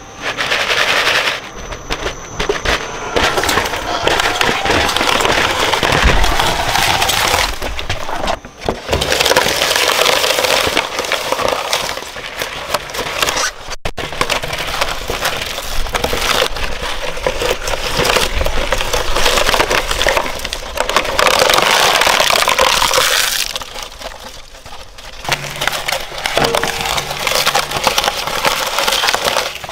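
Twin-shaft shredder's steel cutter discs crushing and tearing plastic Halloween figures: loud, dense cracking and breaking, easing briefly about three-quarters of the way through.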